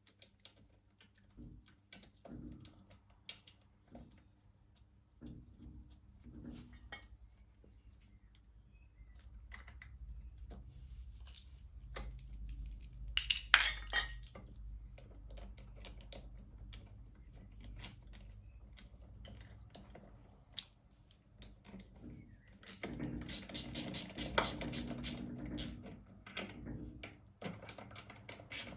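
Small metal parts and hand tools clinking and clattering during work on a lawn mower's carburetor, with scattered clicks and knocks, a louder clatter about halfway through and a run of quick, even clicking near the end.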